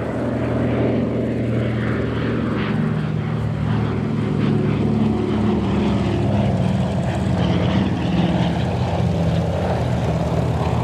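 Douglas DC-3's two radial piston engines and propellers in a display flypast: a loud, steady engine hum, its pitch dropping slightly in the second half as the aircraft passes and climbs away.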